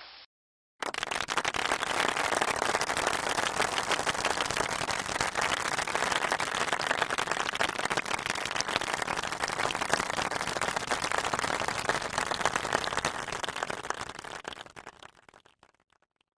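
Large crowd applauding: dense, even clapping that starts abruptly about a second in, holds steady, then dies away over the last two seconds.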